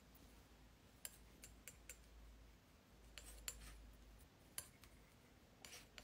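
Near silence broken by a scattering of faint, sharp ticks and light scrapes: a metal palette knife working oil paint on a glass palette.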